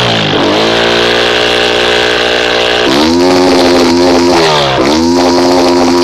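MCX250 motorcycle engine being revved while standing. It drops from a rev into a steady lower speed, is raised sharply about three seconds in and held there, then dips briefly near five seconds and is raised again.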